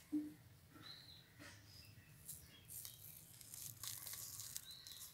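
Faint clicks and rustles of a GoPro camera in its plastic frame being handled and fitted onto a handlebar clamp mount. A few faint bird chirps are heard in between.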